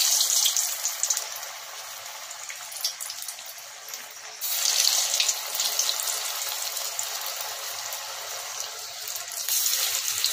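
Cabbage Manchurian balls deep-frying in hot oil in a wok: a steady, dense sizzle that swells three times as fresh balls are dropped in, at the start, about halfway through and near the end.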